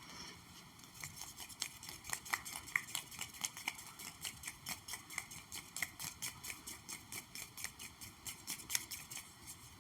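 Light, rapid ASMR tapping on an object, about five or six quick taps a second. The tapping starts about a second in and stops just before the end.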